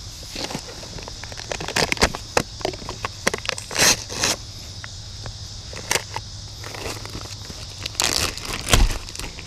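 Plastic bag crinkling and rustling as rolled oats are poured into it from a container. The crackles come irregularly and are loudest about four seconds in and near the end.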